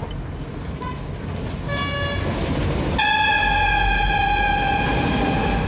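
A horn: a short toot about two seconds in, then a long steady blast from about three seconds in, over a low rumble.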